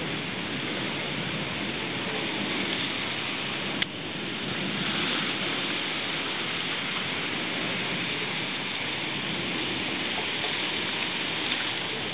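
Wind blowing through a bed of green reeds, the leaves rustling in a steady, noisy hiss. There is a single sharp click about four seconds in.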